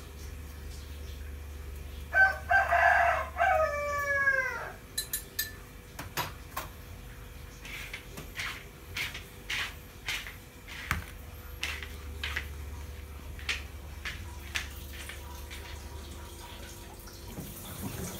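A rooster crows once, a call of about two seconds that ends in a falling glide. Afterwards comes a run of light clinks, about two a second, for several seconds.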